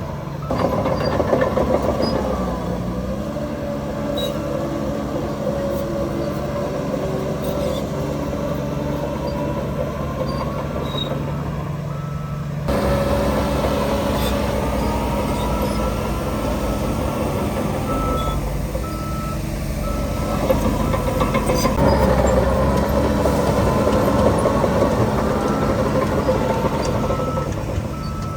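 Heavy diesel earthmoving machinery running under load, with a reversing alarm beeping steadily through much of the second half. The engine sound jumps louder abruptly about twelve seconds in.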